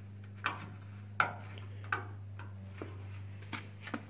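Thick Bondo body filler being chipped off a steel car tail panel: about six sharp clicks and cracks at irregular intervals, over a steady low hum.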